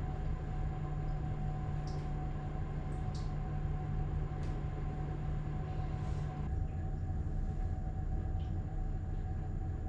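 Pottery wheel running with a steady motor hum while wet clay spins, with a few faint, brief wet squishes from hands working the clay.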